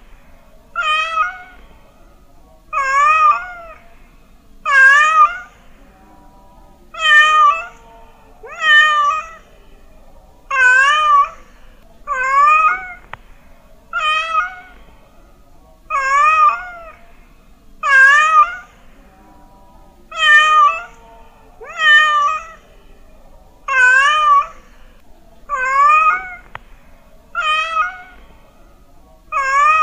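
Domestic cat meowing over and over, about one meow every one and a half to two seconds, each meow short and wavering in pitch.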